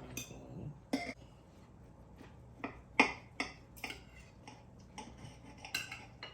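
Cutlery clicking and clinking against plates as food is cut and served, a scattered series of short sharp clicks, the loudest about three seconds in.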